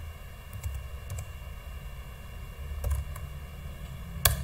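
A few scattered keystrokes on a computer keyboard over a low steady hum, the sharpest click near the end.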